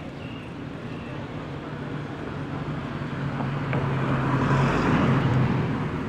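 A motor vehicle passing by, its engine hum growing louder to a peak about five seconds in, then fading.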